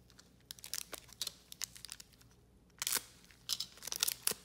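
Foil trading-card pack wrapper being handled and torn open in gloved hands: a run of sharp, uneven crinkles and crackles, loudest about three seconds in and again near the end.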